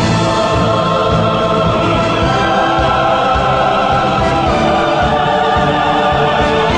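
Background music: choral singing over an orchestral backing with a steady low pulse.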